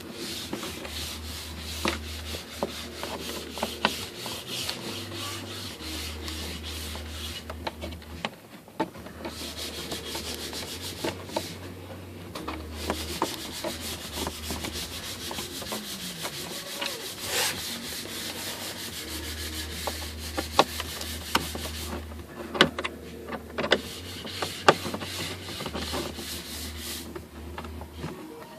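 Torx screws being turned out of plastic car interior trim with a screwdriver: runs of rapid scraping ticks with pauses between them and a few sharp knocks.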